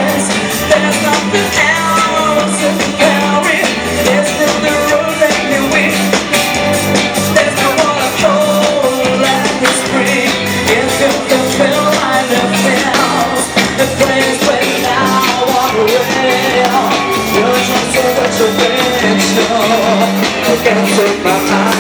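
Amplified live band playing a pop-rock song, with a steady beat underneath and a wavering melody line on top.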